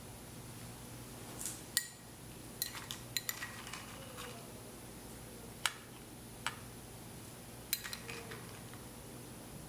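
Metal utensil clicking and tapping against a dish: irregular, scattered sharp clinks, several in a quick cluster about three seconds in and a few more spaced out after.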